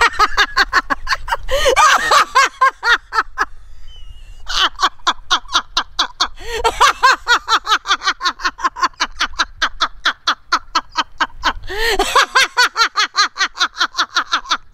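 A woman laughing hard and uncontrollably: long runs of rapid ha-ha pulses, about five a second, broken by a short pause for breath about four seconds in.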